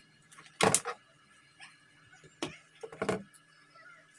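A few sharp knocks and clatters from handling a motherboard and soldering iron on a workbench. The loudest comes about half a second in, and two more follow near the three-second mark, over a faint steady hum.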